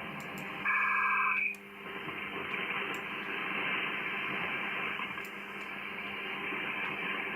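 Shortwave receiver audio on the 80 m amateur band: steady band hiss and static through a narrow receive filter. Under a second in, a loud burst of warbling data tones lasts under a second before the hiss returns.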